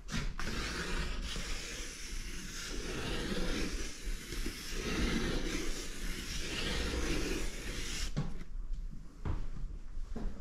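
Charcoal stick scratching and rubbing over paper in looping scribbled strokes, a steady rasp that swells with each stroke, then stops about eight seconds in.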